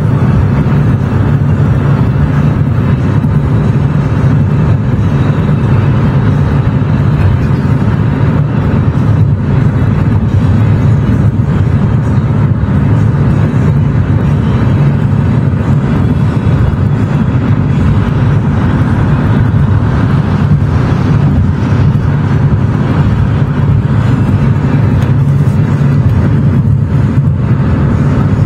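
Steady road and engine noise of a car driving at speed, an unbroken low rumble.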